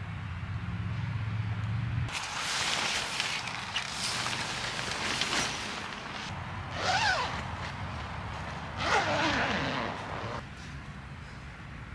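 Nylon fabric of a Blackdog pop-up tent rustling and swishing as it is handled and opened, with two louder swooshes falling in pitch about seven and nine seconds in. A low hum fills the first two seconds.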